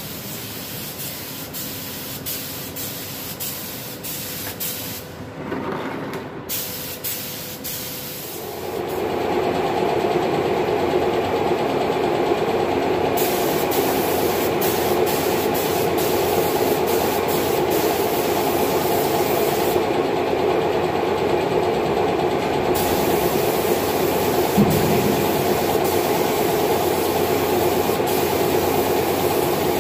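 BULL BLSG01-827 HVLP spray gun with a 1.4 mm nozzle hissing in repeated on-and-off bursts as it sprays primer. From about eight seconds in, a small Shark 0.5 HP piston air compressor runs steadily beneath it, a compressor the owner finds too small for this gun.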